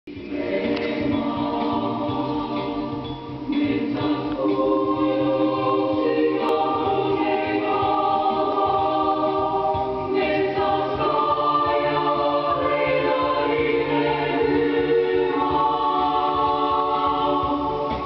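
A choir singing slow, held chords that change every few seconds.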